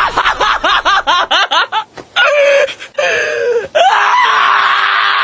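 A dog yelping in a fast run of high, gliding cries, about seven a second, then two longer screaming cries. About four seconds in, a steady high-pitched whine with a hiss starts and holds.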